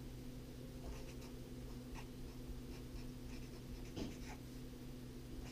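Felt-tip marker writing on paper: short, irregular strokes, a few each second, over a steady low hum.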